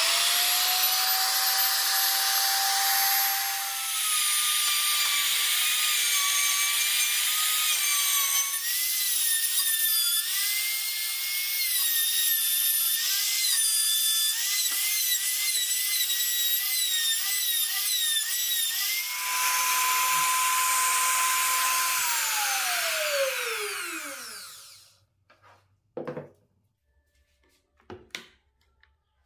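Compact trim router spinning up to a high whine and cutting a square pocket in hardwood, its pitch wavering as the bit works under load. Near the end it runs free briefly, then is switched off and the whine falls away as it spins down, followed by two short knocks.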